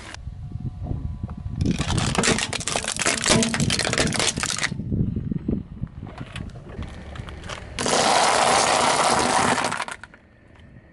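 Car tyre rolling over and crushing plastic toys on asphalt: a few seconds of dense crunching and cracking, then scattered quieter crackles, and near the end a loud steady hiss for about two seconds that cuts off suddenly.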